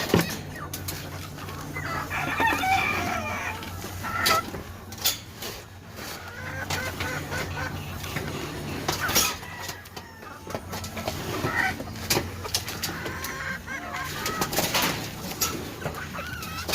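Gamefowl chickens clucking and roosters crowing at intervals, with scattered sharp knocks and clicks over a steady low hum.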